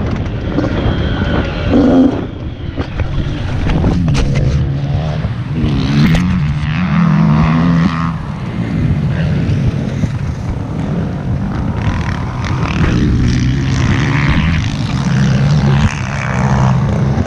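Honda CRF80 pit bike's small single-cylinder four-stroke engine revving up and down repeatedly as it is ridden around a track.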